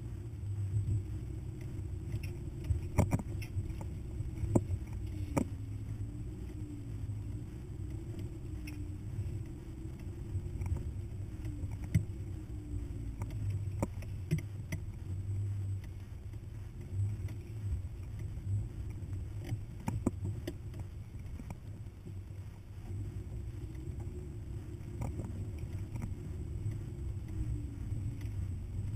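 Hummer driving slowly over a rough dirt trail: a steady low engine and road rumble, with a dozen or so sharp knocks and rattles scattered through it as the truck goes over bumps.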